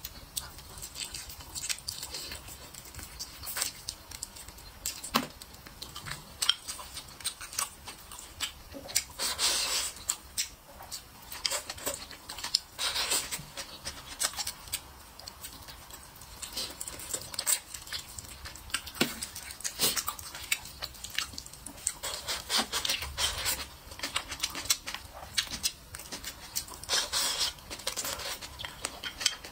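Close-up eating sounds: chewing and lip-smacking on braised meat and rice, with many short wet clicks and a few louder sucking stretches.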